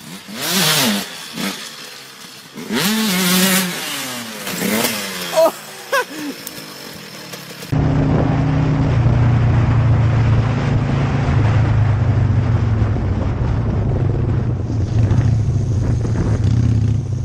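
A motorcycle engine revving up and down in three bursts. After a sudden cut, a cruiser motorcycle's engine runs steadily at a low pitch while riding.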